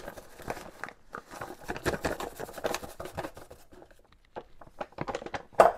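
Flour being scooped and poured with a measuring cup: a run of soft scrapes, rustles and light taps. One sharper knock comes near the end.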